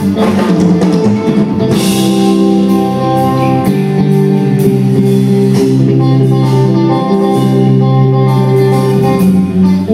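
Live rock band playing without vocals: electric guitar over electric bass and drum kit, with long held notes and a cymbal crash about two seconds in.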